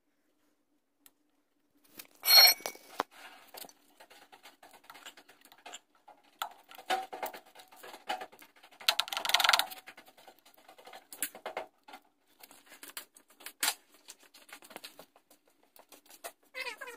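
Metal hand tools and drum-brake parts clinking and scraping against each other and on a concrete floor during a rear drum brake job. After a quiet start, a ringing metal clank about two seconds in is the loudest sound. There is a longer scrape around nine seconds and a short wavering scrape near the end.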